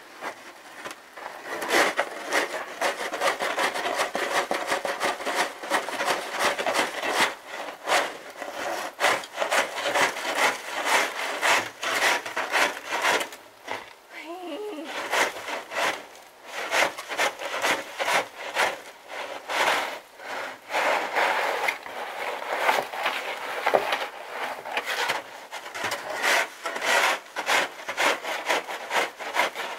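Snow shovel scraping and pushing snow along wooden deck boards in a steady run of repeated strokes, roughly one or two a second.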